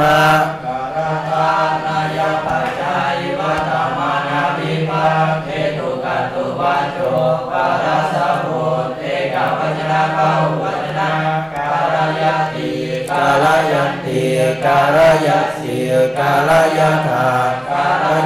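A voice chanting Pali grammar in a rhythmic sing-song recitation on a nearly steady pitch, the syllables running on without a break.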